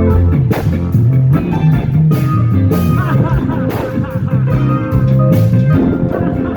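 Instrumental break of a rap song: a bass line stepping between notes under a steady drum beat, with guitar.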